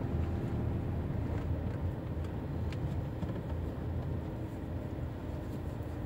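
Steady low road and engine rumble inside a car's cabin, the car crawling in slow motorway traffic.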